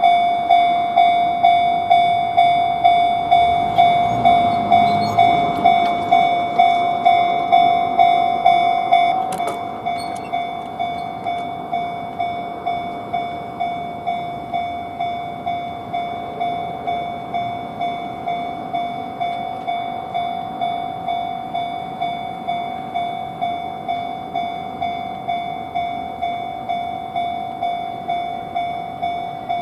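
Japanese railway level-crossing alarm ringing its repeated electronic "kan-kan" tone, a little over two strikes a second. It drops in loudness about nine seconds in and keeps ringing, with a low rumble beneath it around four to six seconds in.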